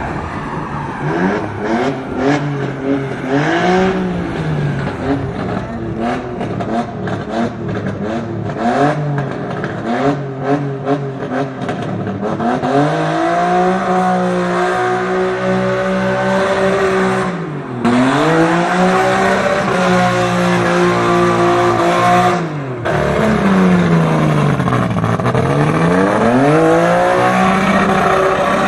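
Car engine revved hard, its pitch rising and falling again and again: quick short revs at first, then long pulls held at high revs with sharp drops between them.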